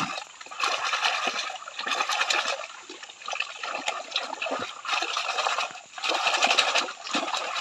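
Water sloshing and splashing as a gold pan full of sand and gravel is swirled and shaken under a shallow stream, washing the lighter material out. The swishing comes in repeated swells, roughly one a second.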